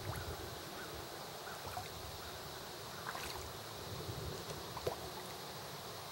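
A few small splashes and gulps at the pond surface as fish and turtles snatch floating food, the sharpest about five seconds in, over a low rumble of wind on the microphone.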